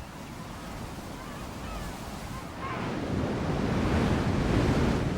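Surf washing in, swelling to a louder wave about halfway through and easing off again, with wind.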